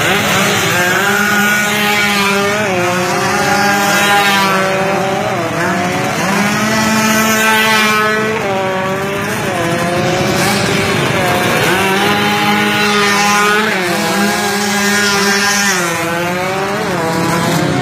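Several motorcycle engines revving hard, their pitch climbing and dropping back again and again over a steadier engine drone.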